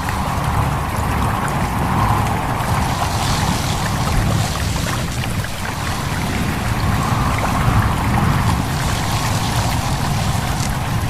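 Stream babbling and trickling over a steady low rumble, with a whistling wind tone that wavers slowly up and down in pitch and swells and fades.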